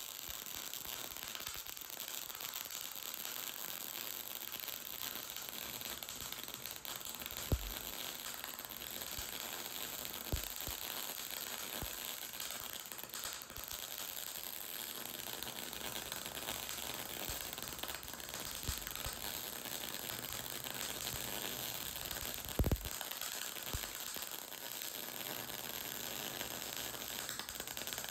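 MIG welding arc running a bead with the shielding gas turned off: a steady hiss with a few sharp pops, about 7 s, 10 s and 23 s in. Without gas the arc runs unstable, throwing excessive sparks and spatter, the sign of a porous weld forming.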